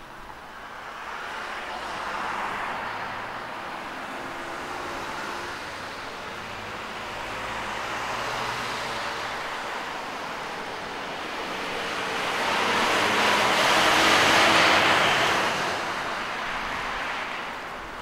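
Cars passing on the road, their tyre noise swelling and fading several times, with the loudest pass late on.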